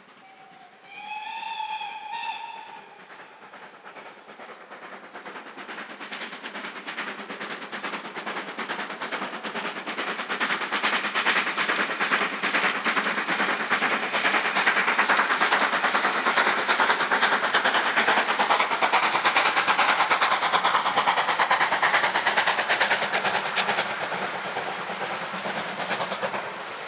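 Steam locomotive whistle blown once, about a second in, a single pitched blast lasting about two seconds. The locomotive's exhaust beats and the running train then grow steadily louder as it approaches, are loudest as it passes, and ease off near the end.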